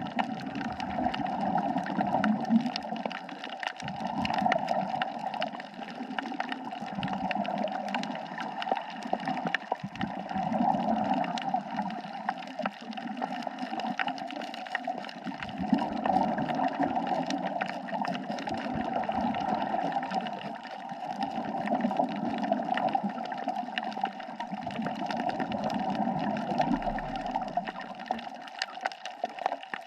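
Underwater ambience on a coral reef: gurgling bubbles that swell and fade every few seconds, the rhythm of a scuba diver breathing out through the regulator, over a steady crackle of fine clicks.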